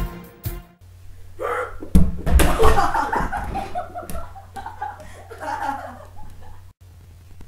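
A sharp smack about two seconds in, followed by several seconds of people laughing, over a low steady hum.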